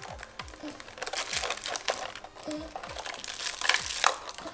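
Pink plastic protective case of an LOL Surprise doll being handled and pried open by hand: irregular clicks, knocks and crinkling of hard plastic.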